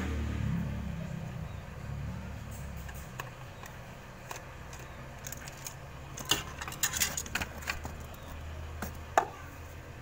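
Light clicks and clinks of handling a refrigerator's inverter control board in its plastic housing and the loose parts around it, bunched about six to seven and a half seconds in, with one sharp click near the end, over a low steady rumble.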